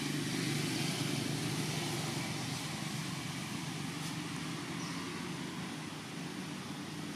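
Steady low rumble of motor traffic, easing off slightly toward the end.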